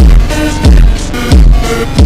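Electronic background music with a heavy bass drum hitting about every two-thirds of a second, each hit sliding down in pitch, under short synth notes.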